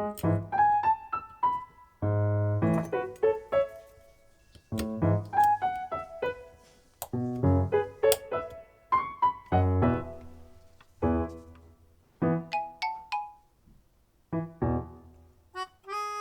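Background music: a piano-like keyboard plays a melody of separate notes that fade quickly, with a held chord about two seconds in.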